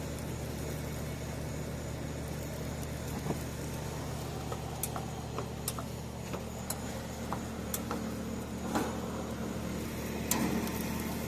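A steady low mechanical hum, like a motor or engine running, with scattered light clicks and taps over it.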